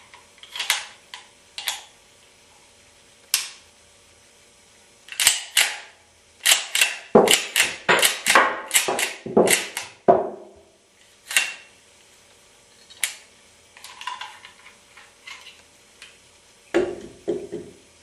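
Replica M1911 pistol's slide being racked by hand over and over, sharp metallic clacks of the slide and action cycling, with a fast run of clacks in the middle. Near the end a couple of duller knocks as the pistol is set down on a wooden block.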